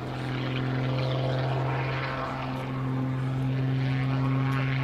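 Pitts S-2S Special aerobatic biplane's piston engine and propeller running steadily at high power overhead, growing louder at the start.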